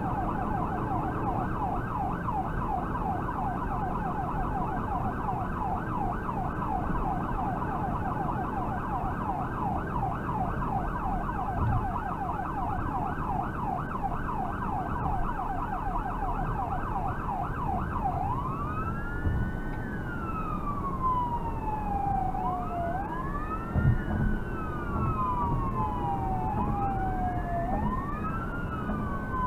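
Electronic emergency siren on a vehicle running an emergency call, heard from inside the cabin: a fast yelp of about four sweeps a second, switching about two-thirds through to a slow wail that rises and falls every few seconds, over steady road noise.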